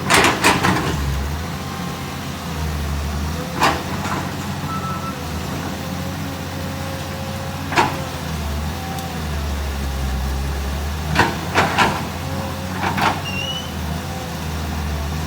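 A 320 excavator's diesel engine running under working load, its drone swelling and easing every few seconds, with a faint wavering whine and about ten sharp knocks: a cluster at the start, single ones near four and eight seconds in, another cluster a little past halfway.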